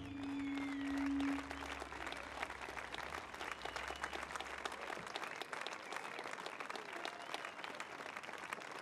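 Audience applauding, many hands clapping steadily. In the first second and a half, a last held musical note fades out under the clapping.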